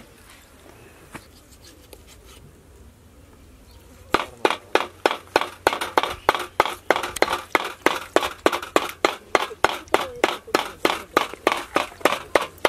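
Large knife chopping raw chicken on a wooden log chopping block: sharp, evenly paced strokes about three a second, starting about four seconds in.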